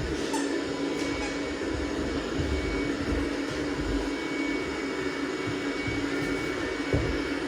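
Robot vacuum cleaner running with a steady motor hum and a faint high whine.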